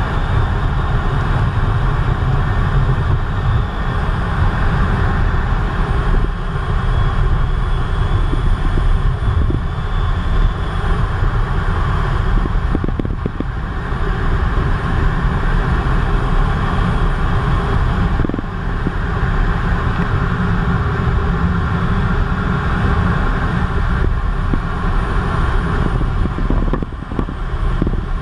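Loud, steady noise inside the cockpit of a Eurofighter Typhoon in low-level flight: its two Eurojet EJ200 turbofan engines and the airflow over the canopy, dipping briefly near the end.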